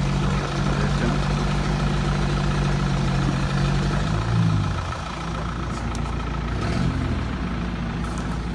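Off-road 4x4 engine idling steadily, with a short rev that rises and falls about four seconds in. It then runs a little quieter, with another small rev near seven seconds.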